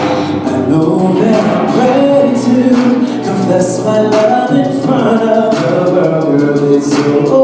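Singing with music: sung notes that bend and are held, with no clear words.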